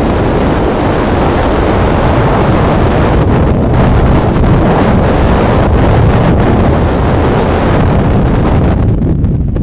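Strong wind buffeting the microphone: a loud, steady rumbling roar of wind noise.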